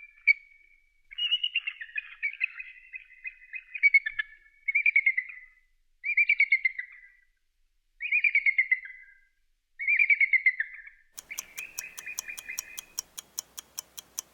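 An eagle calling: a series of about six high, trilling calls that fall in pitch, separated by short pauses. Near the end a clock ticks rapidly and evenly as a quiz countdown.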